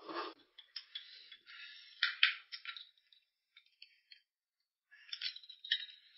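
Eating at the table: short clicks and clinks of tableware, with brief bursts of eating noise. The loudest come about two seconds in and again near the end.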